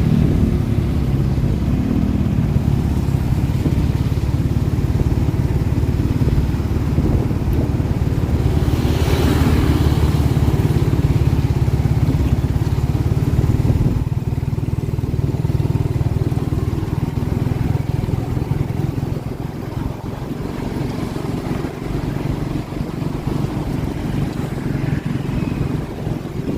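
Suzuki Satria FU 150 motorcycle engine running steadily, with a brief hiss about nine seconds in and a slight drop in level after about fourteen seconds.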